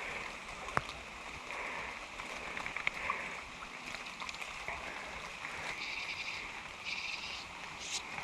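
Small creek running steadily, with a few sharp clicks and some short higher-pitched buzzy bursts over it in the second half.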